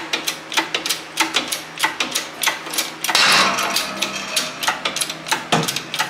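Hand-pumped hydraulic shop press being worked to press a dry, corroded U-joint out of a driveshaft yoke. It clicks sharply in a steady rhythm of about three a second, with a louder, noisier stretch of about two seconds starting about three seconds in.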